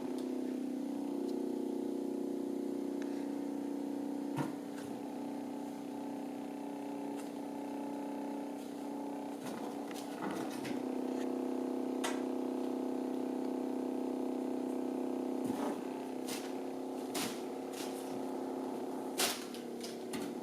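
Hexbug Nano robot toy buzzing inside a box, its small vibration motor giving a steady hum, with scattered sharp taps as it knocks about.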